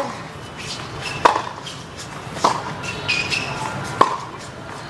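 Tennis rally: a ball struck back and forth by racquets, four sharp hits about every second and a quarter.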